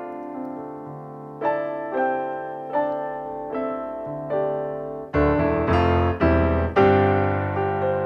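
Background solo piano music: single notes struck at an unhurried pace, then louder chords from about five seconds in.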